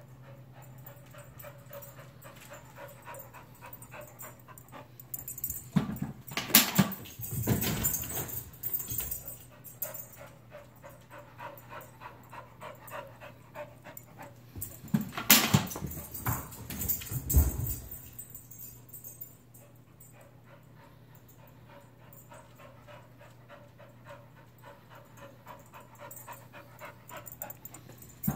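Dog whining on and off. About six and fifteen seconds in come two short bursts of knocks and thumps as the dog plays with a ball.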